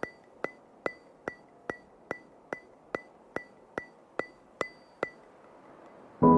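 Evenly spaced sharp ticks like a wood block or metronome, about two and a half a second, each with a short ringing tone. They stop about five seconds in. Near the end, louder music with sustained piano-like notes begins.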